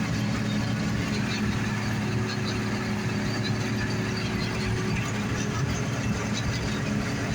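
A John Deere combine running steadily while harvesting barley: a constant low engine and machinery drone, with a faint higher tone held for a few seconds midway.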